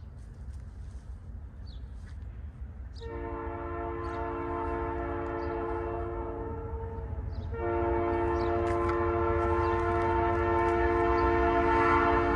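Multi-chime air horn on Canadian Pacific's lead F-unit diesel locomotive sounding two long blasts: the first starts about three seconds in, the second just past halfway and is still sounding at the end. Under it runs a low train rumble that grows louder.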